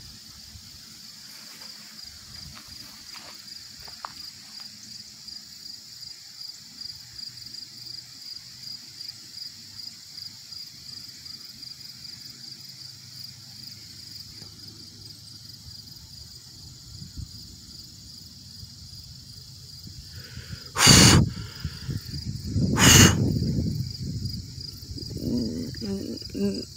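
Insects chirping in a steady, evenly pulsing high chorus. Near the end, two loud sudden noises about two seconds apart cut across it, the first the sharper and the second trailing off with more low rumble.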